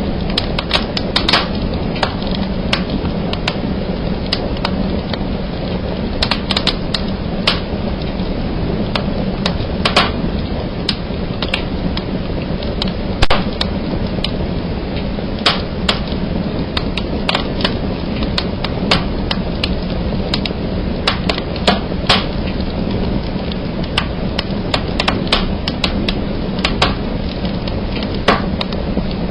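Fire burning in a fireplace: a steady low rush of flames with frequent, irregular sharp snaps and crackles.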